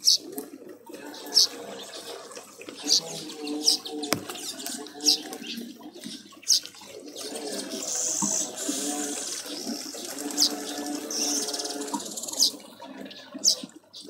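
Wild birds calling: short, sharp high chirps about once a second over lower, wavering calls, with a spell of hissing noise about halfway through.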